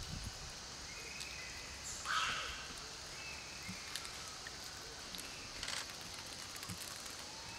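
Outdoor ambience: a steady hiss with a few short, thin high calls and two brief harsh sounds, the louder about two seconds in.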